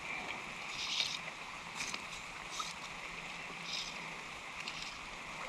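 Small creek running steadily, with a few short bursts of noise over it.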